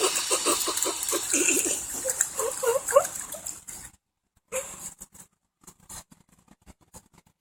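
Boston terrier puppy giving a rapid run of short, high yelps, several a second, over a steady hiss of rain. The yelps stop about four seconds in, leaving scattered light taps and splashes.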